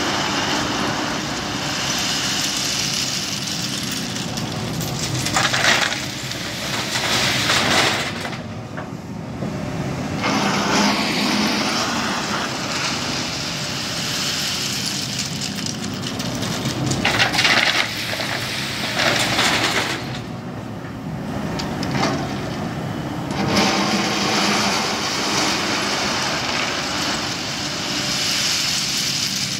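SANY crawler excavator's diesel engine running under working load, easing off twice for a few seconds, with a few short louder peaks.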